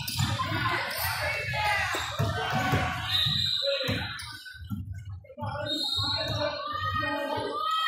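A basketball bouncing on a hardwood gym floor amid voices echoing in a large gym, with music becoming audible in the second half.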